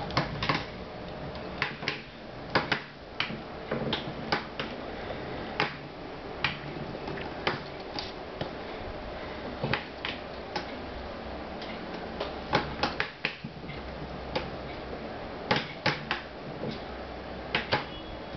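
Irregular sharp clicks and clacks of LEGO plastic parts being handled, some in quick pairs, over a steady low hum.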